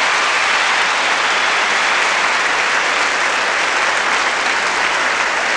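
Concert audience applauding, a steady, even clapping that holds throughout.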